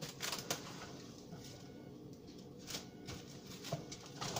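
Faint scattered rustles and light clicks of something being handled off to the side, a few in the first half second, more around three seconds in, and again at the end, over a low steady room hum.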